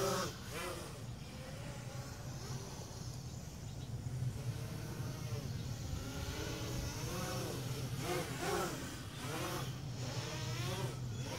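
Blade 200 QX quadcopter's motors and propellers buzzing, the pitch rising and falling again and again as the throttle changes while it takes off and flies.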